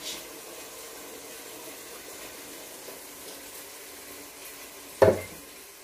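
Kitchen sounds during cooking: a faint steady hiss, then one sharp knock about five seconds in that rings briefly.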